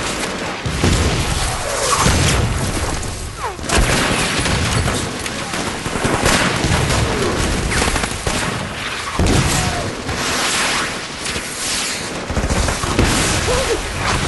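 Battle sound effects: heavy explosions and dense rifle and machine-gun fire, with several booms.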